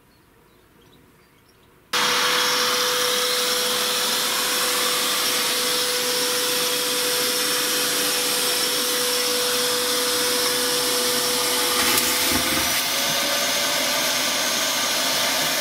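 Vax vacuum machine switched on about two seconds in and running steadily with a high whine, sucking up canal water from a flooded bow thruster compartment. Its pitch rises slightly near the end.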